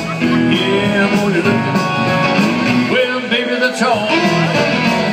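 Live rock and roll band playing: hollow-body electric guitar, solid-body electric guitar, upright bass and drums.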